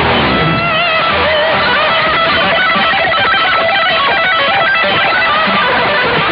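Electric guitar playing lead lines, with notes bent and wavering in pitch.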